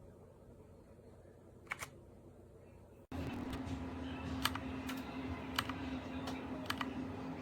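Separate clicks of keys being pressed on a Keychron K2 mechanical keyboard, a few at a time with gaps between them. About three seconds in, the sound cuts abruptly to a louder stretch with a steady low hum under the clicks.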